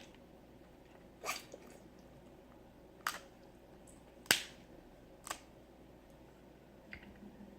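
Eating crawfish and snow crab: four sharp, separate smacking clicks between quiet pauses, the loudest a little past four seconds in, and a faint one near the end.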